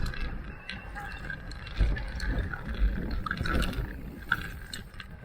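Electric mountain bike riding over a rough trail: a low rumble with uneven jolts and frequent clicks and rattles from the bike.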